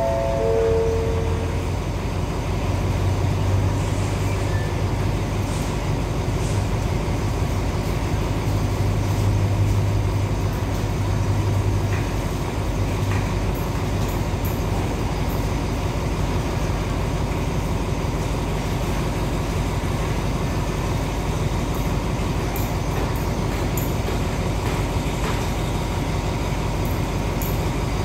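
Diesel passenger train standing at the platform with its engines idling: a steady low hum and rumble, a little stronger for the first dozen seconds. It opens with the last notes of a descending public-address chime.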